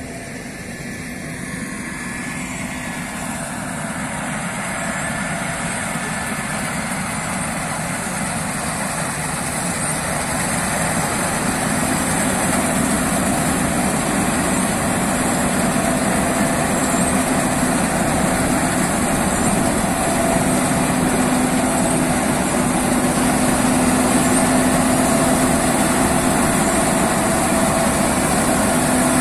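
Case IH Axial-Flow 6150 combine harvester running under load while cutting and threshing triticale with its wide grain header. The engine and threshing machinery give a steady drone with a held hum, growing steadily louder as the combine comes closer.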